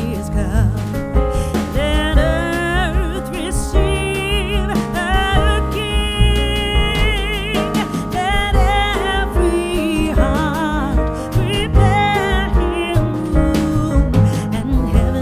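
A song with a sung vocal melody over a steady beat and bass, with clear vibrato on the held notes.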